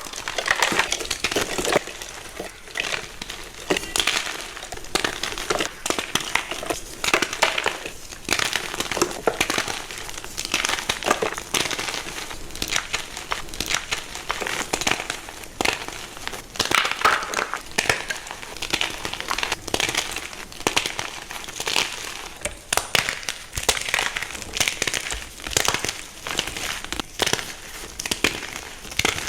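Soft gym chalk being crushed and crumbling, a dense, irregular run of crunches and crackles.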